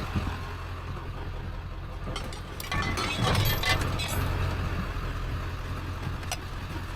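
Steady low hum of a vehicle running, with a short stretch of clinking and rattling about three seconds in.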